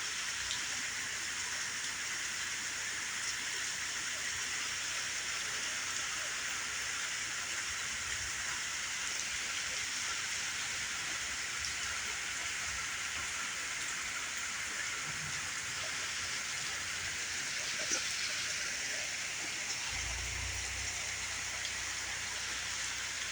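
Steady rain falling: an even hiss with scattered louder drops. A low rumble comes in about 20 seconds in.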